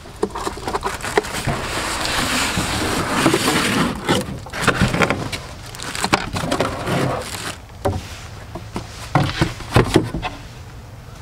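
Cardboard, foam and plastic packaging rustling and scraping for a few seconds as a portable power station is pulled out of its box, then scattered knocks and taps as the pieces are set down.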